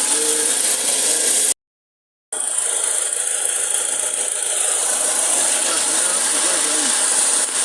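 Toyota Fortuner's 2TR four-cylinder petrol engine idling steadily with a rattle. The sound drops out completely for under a second, about a second and a half in, then resumes.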